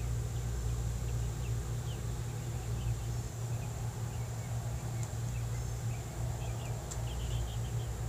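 Outdoor background: a steady low hum and a thin, constant high whine, with scattered faint bird chirps.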